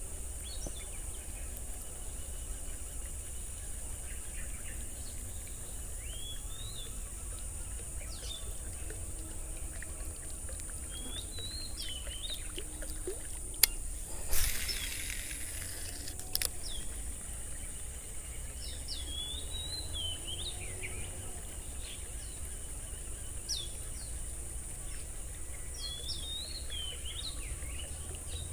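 Birds calling with short rising chirps every few seconds over a steady high hiss. About halfway through, a sharp click and a brief rushing swish as a cast is made with an Abu Garcia Ambassadeur baitcasting reel, followed by another click about two seconds later.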